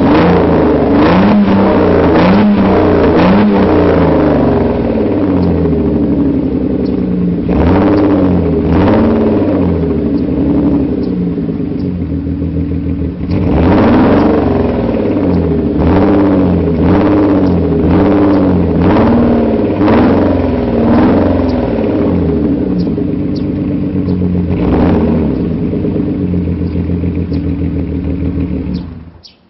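Mercedes-Benz W124 engine through a modified exhaust, revved over and over in short blips whose pitch rises and falls. The sound cuts off suddenly near the end as the engine is switched off.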